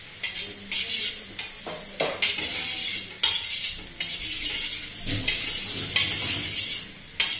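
A spoon beating raw eggs in a stainless steel bowl: quick scraping, clinking strokes against the metal, about two a second.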